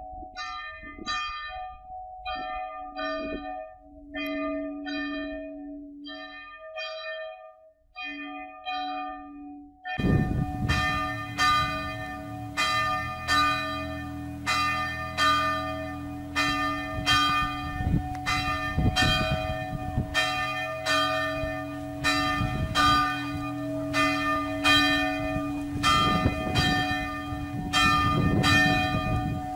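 Church bells ringing in the belfry, struck about twice a second. About ten seconds in, the ringing becomes suddenly louder and fuller.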